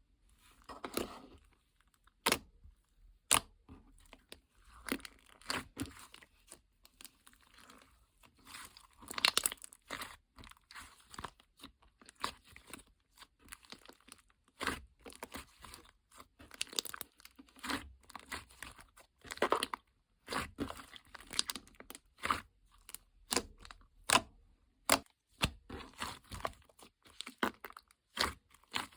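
Paper and plastic pieces being handled by hand, crinkling and rustling, with many irregular sharp clicks and taps.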